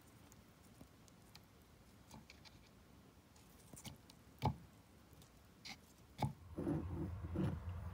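Faint, scattered clicks and rustles of a plastic mesh bag holding dried rose petals being handled, with a sharper click about four and a half seconds in. A low rumble comes in near the end.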